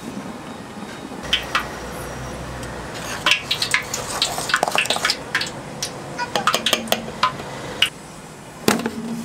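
Batter being stirred in a stainless steel bowl, a metal utensil clinking and knocking against the bowl in a quick irregular run.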